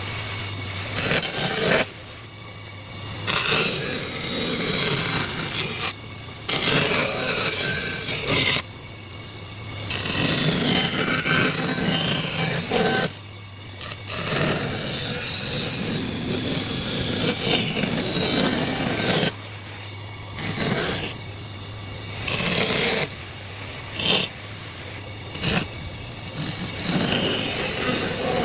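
A hand tool scraping across wood in repeated strokes, each lasting from under a second to several seconds, with short pauses between them. A steady low hum runs underneath.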